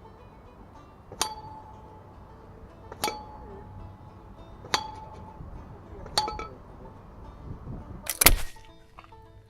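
Air rifle shots at a metal spinner target: four sharp cracks about one and a half seconds apart, each followed by a short metallic ping as the .22 pellet strikes the steel spinner. A louder, heavier knock comes near the end.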